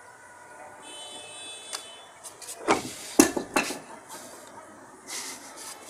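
A cluster of sharp knocks and clatters about halfway through, after a faint high ringing tone.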